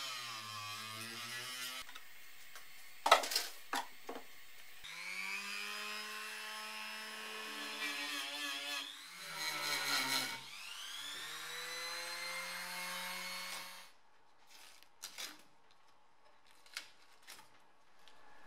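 Electric rotary tool with a roll-up finishing pad grinding rust off a steel dashboard mounting plate. Its whine winds down near the start, with a few sharp knocks around three seconds in. It spins up again about five seconds in, dips and recovers in pitch around ten seconds, and stops about fourteen seconds in, leaving a few faint clicks.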